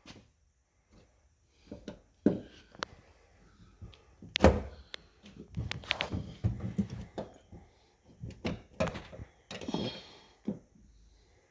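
Irregular knocks, clicks and rattles of hands and tools working a 2006 Ford Focus door's outside handle and latch parts, with the loudest knock about four and a half seconds in.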